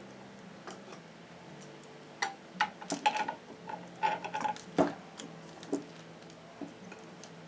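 A run of light clicks and knocks, like small hard objects being handled, bunched in the middle, over a steady low hum.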